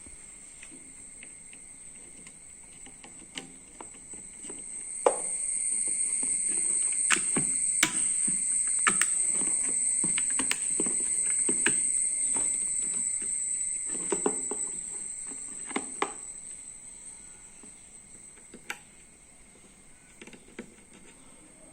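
A steady, high-pitched drone runs throughout and grows louder for about ten seconds in the middle. A dozen or so sharp clicks and knocks, such as computer parts being handled and fitted, sound over it.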